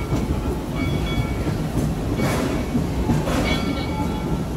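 Passenger cars of a narrow-gauge amusement-park train rolling along the track: a steady low rumble with the clickety-clack of wheels over rail joints, and brief thin wheel squeals coming and going as the train rounds a curve.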